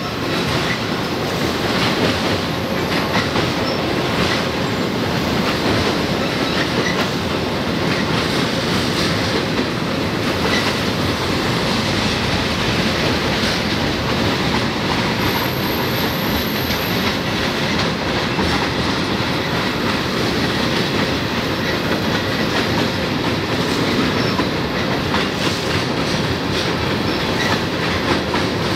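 Freight cars of a Florida East Coast Railway train rolling past on a low girder bridge: a steady, unbroken noise of steel wheels on rail with irregular clicks throughout.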